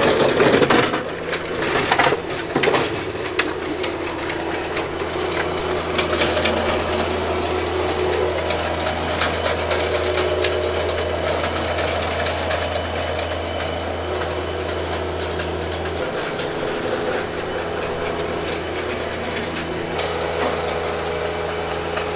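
John Deere 1025R compact tractor's three-cylinder diesel engine running under load while driving a PTO-powered King Kutter rotary tiller through soil. The tiller tines churn the ground with scattered clicks and knocks. The low engine hum drops somewhat about three quarters of the way through.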